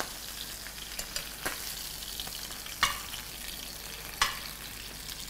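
Pieces of rui fish sizzling in hot oil in a frying pan as they are lifted out with a metal spatula once fried, with a few sharp spatula clinks, the loudest about three and four seconds in.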